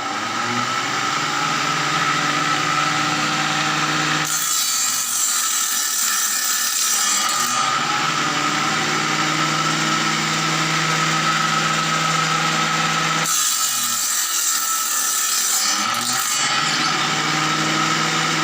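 Homemade table saw driven by a sewing-machine motor, running at steady speed with a hum and whine, and twice cutting through a 15 mm thick board, each cut about three seconds long with a harsher, hissing sound as the blade bites the wood.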